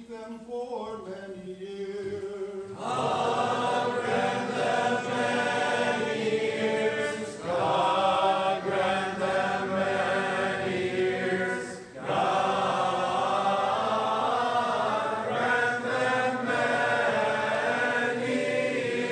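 Byzantine liturgical chant. A single voice sings alone at first, then a choir comes in about three seconds in and sings on in several parts, pausing briefly between phrases.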